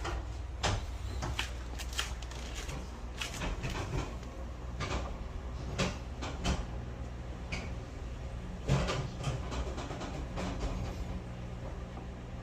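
Vacuum cleaner running with a steady low hum, with irregular sharp clicks and knocks over it; the loudest knock comes a little before nine seconds in.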